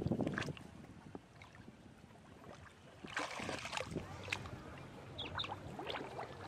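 Hands splashing and swishing in shallow muddy water, in irregular bursts from about three seconds in.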